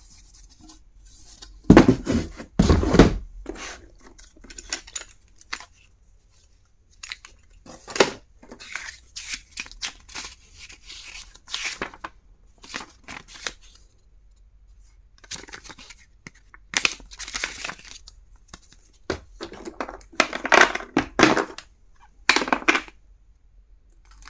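Packaging being torn open and handled, in irregular rustling and tearing bursts, the loudest about two to three seconds in, with further bursts near the middle and towards the end.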